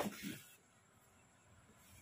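Brief rustle and knock of cardboard as a carton of cat-food pouches is lifted out of a cardboard shipping box, over within about half a second, then near quiet.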